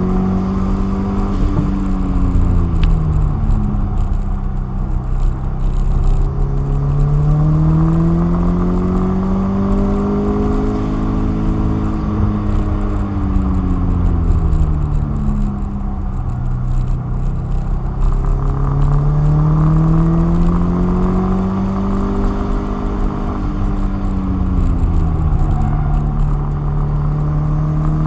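Car engine heard from inside the cabin while being driven hard around a cone-marked track: its note climbs steadily under acceleration and drops off on lifting for the corners, three times over, under a constant rumble of road and tyre noise.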